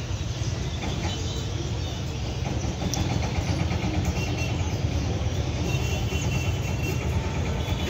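Diesel locomotive's engine running as it approaches: a steady low rumble that grows slightly louder.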